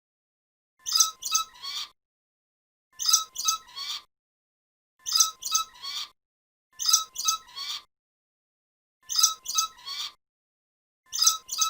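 A bird call of three quick notes, repeated identically about every two seconds with complete silence between, like a looped recording.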